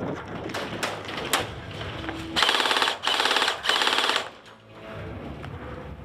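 Airsoft electric gun firing on full-auto in two short bursts, one of about half a second and then one of about a second, each a fast rattle of shots. A few sharp single clicks come before them.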